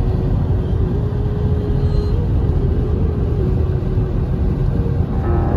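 Steady low rumble of road and wind noise heard from inside a moving car. Music comes in near the end.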